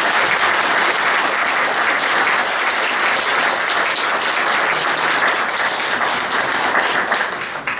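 Audience applauding: many hands clapping in a steady dense patter that stops abruptly at the end.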